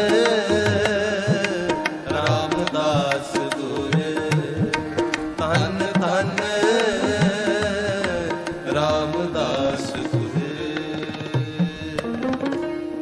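Shabad kirtan music: tabla drumming under a wavering melodic line, in an instrumental passage between sung verses.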